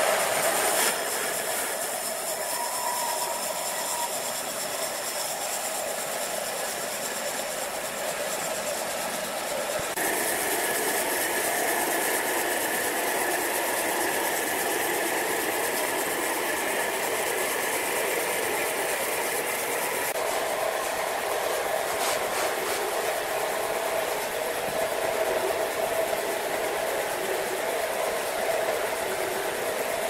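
Horizontal band sawmill running, its band blade cutting lengthwise through a large log: a steady mechanical whine and hiss. The sound changes abruptly twice.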